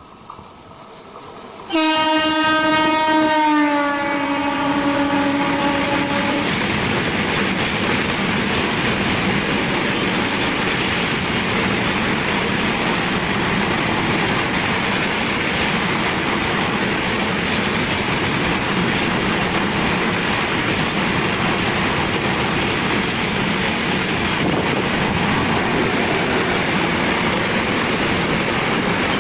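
A freight locomotive's horn sounds loudly about two seconds in and is held for around four seconds, dropping slightly in pitch partway through. Then comes the steady noise of a long container freight train's wagons rolling past on the near track.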